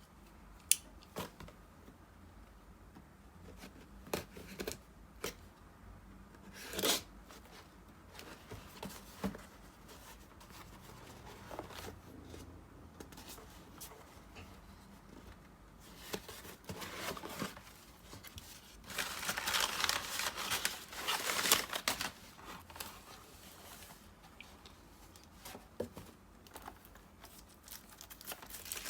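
Product packaging being opened by hand: scattered clicks and taps, then a few seconds of tearing and crinkling about two-thirds of the way through.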